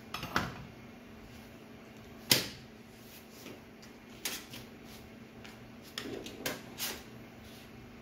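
Scattered clicks and knocks of circuit boards being handled and set down on a workbench, the loudest knock a little over two seconds in and a quick run of clicks near the end.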